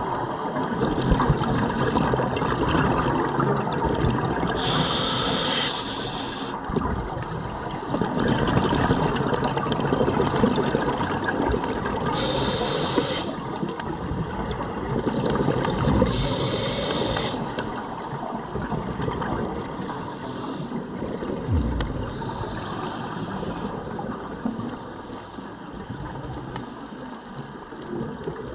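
Scuba breathing heard underwater: the regulator hisses in short bursts every few seconds, between continuous gurgling, rumbling exhaled bubbles.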